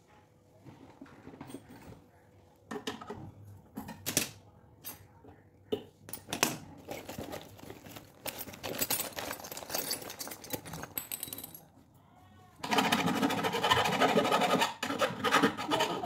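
Handling noises: scattered clicks, clinks and knocks of metal tools and a steel bowl, with cloth rustling. Near the end a louder, sustained sound lasts about two seconds.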